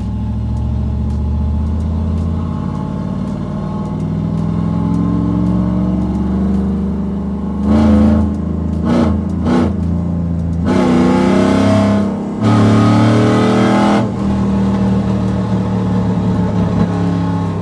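Cammed LS V8 of a single-cab Chevrolet Silverado with tube headers and a near straight-pipe exhaust, heard from inside the cab. It drones steadily while cruising, gives a few short loud surges about eight seconds in, then pulls hard with rising pitch, breaks off briefly around twelve seconds in, and pulls again before settling back to a steady cruise.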